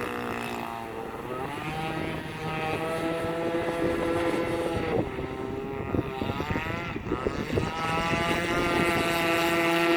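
Small 26cc two-stroke petrol engine of an RC boat running and changing speed with the throttle. It climbs back to speed about a second in, dips briefly twice in the middle, then holds a steady high pitch near the end.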